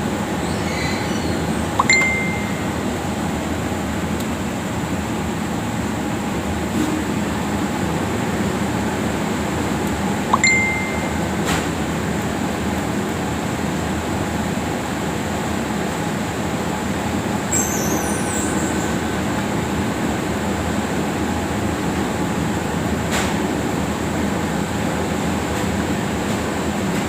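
Two sharp metallic clinks, one about two seconds in and one about ten seconds in, each ringing briefly, over a steady machine-like hum.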